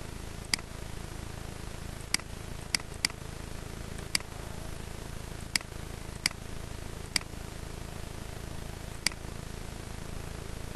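Computer mouse clicking about nine times at uneven intervals, sharp single clicks over a steady low hum and hiss from the recording.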